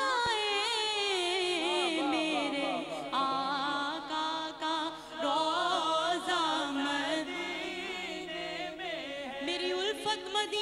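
A woman singing a devotional naat, drawing out long wavering melismatic phrases with no clear words.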